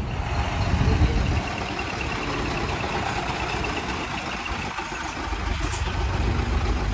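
Heavy truck's diesel engine running as the truck drives slowly past at close range. The deep rumble is strongest in the first second and a half, then settles into a steadier run.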